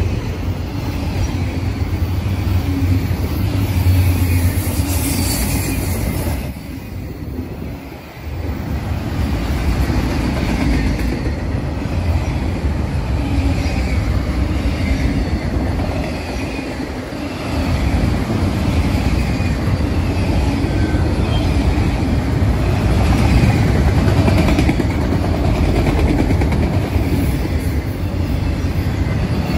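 Freight train of autorack cars rolling past close by: a steady rumble of steel wheels on rail, easing off briefly twice, about seven and seventeen seconds in.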